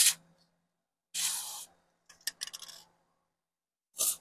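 Aerosol can of WD-40 Specialist lithium grease spraying in separate bursts of hiss: a short one at the start, a longer half-second one just after a second, a run of short sputtering spurts from about two to three seconds, and another short one at the end.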